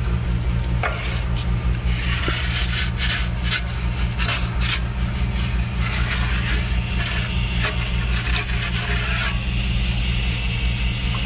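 Wooden pizza peel scraping and rasping across the oven's stone floor with scattered clicks as bagels are slid off. It starts a second or two in and stops abruptly near the end, over a steady low hum.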